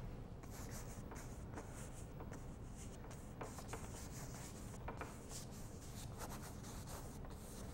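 Faint brush strokes: a paintbrush scrubbing thick paint onto stretched canvas in short, irregular crisscross strokes.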